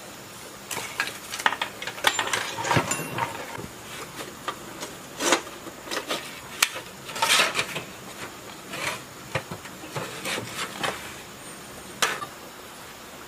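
Hands pulling and working the tangled wiring and metal terminal parts of an old rusted generator: irregular clicks, rattles and short rubbing scrapes of wire on metal, with a sharp click near the end.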